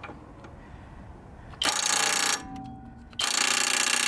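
Half-inch cordless impact wrench hammering on a 19 mm lower control arm bolt on its lowest setting: a short burst of under a second about one and a half seconds in, then, after a pause, a longer burst about three seconds in. On this setting it does not break the rusted bolt loose.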